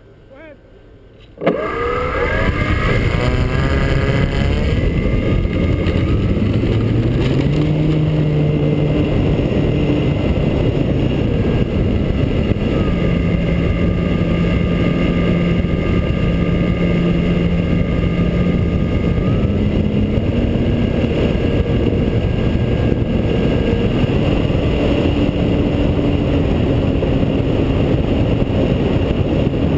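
Radio-controlled T-28 Trojan model warbird powering up suddenly about a second and a half in. The pitch of its motor and propeller rises through the takeoff run, then holds steady in flight with a few small throttle changes. It is heard from under the wing over a heavy rushing noise.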